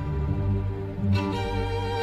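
Background music led by bowed strings such as violin, holding sustained notes over a low bass line, with a change of note about a second in.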